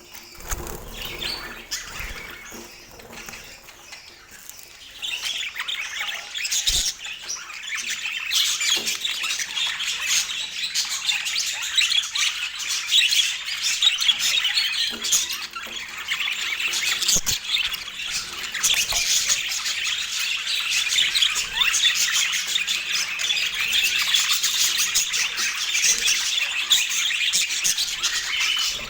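Budgerigars chattering and chirping with many overlapping calls. Softer for the first few seconds, then louder and denser from about five seconds in.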